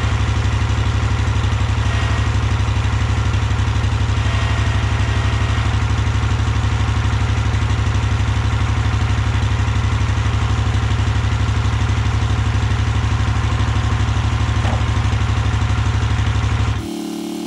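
Husqvarna Rider 1200 riding mower engine running steadily with a fast, even pulse. It is being run with the rear wheels raised to work fresh oil through the hydrostatic transmission. Near the end the sound drops abruptly to a quieter, different steady hum.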